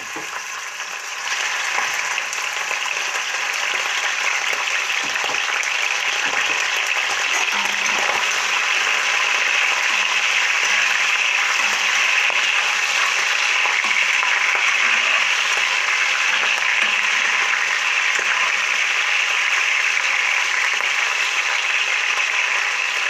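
Pieces of goat heart sizzling in hot vegetable oil in a thick-walled cast-iron frying pan. The sizzle is a dense, steady hiss that grows louder over the first couple of seconds as more pieces go in.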